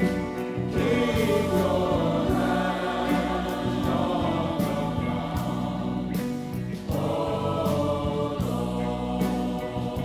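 College gospel choir singing in full harmony with band accompaniment: steady bass and regular percussion hits, played back from a vinyl LP.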